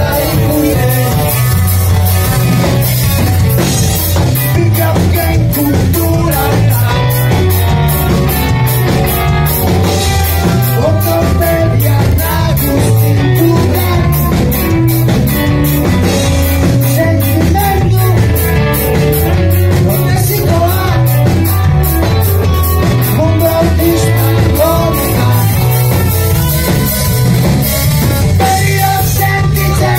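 A rock band playing live: a man singing into a microphone over a drum kit, bass guitar and electric guitar, with a steady drum beat.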